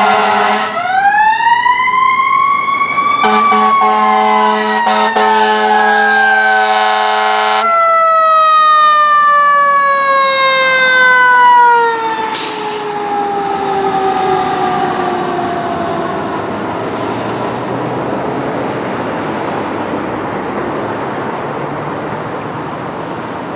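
Fire engine's air horns sounding a steady chord, then the siren winding up while the horns sound again for several seconds. The horns stop about eight seconds in, and the siren winds slowly down in pitch over the next ten seconds, dropping in level as the engine passes, leaving traffic noise.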